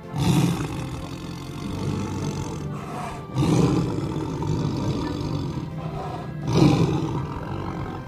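Tiger roaring: three rough, low roars a little over three seconds apart, the last one the loudest.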